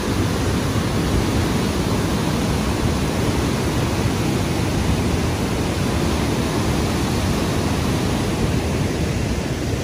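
Steady rushing roar of the Niagara River's whitewater rapids above the falls.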